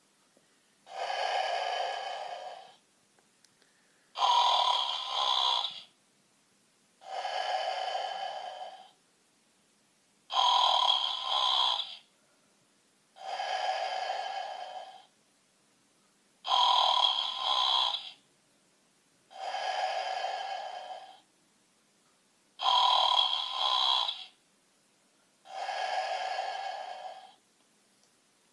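A bear snoring slowly and evenly, nine snores in all. A louder, brighter snore alternates with a softer, lower one, each lasting about two seconds with a short pause between.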